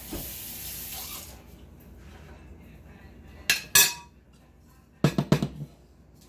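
Kitchen utensil sounds: a metal serving spoon set into a ceramic mixing bowl clinks twice, sharp and ringing, about three and a half seconds in. About five seconds in, a quick run of dull knocks follows as a wooden spoon is worked in a stainless steel stockpot on a glass cooktop.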